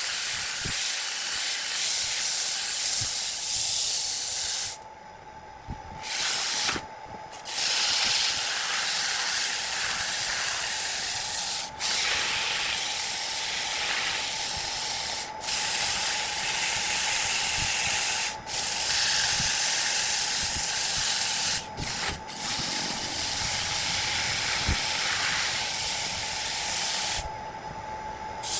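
Steady hissing noise over a faint steady whine, stopping briefly several times.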